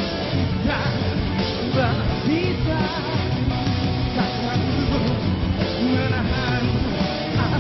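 Rock band playing live, with a wavering lead melody over a full, loud band backing.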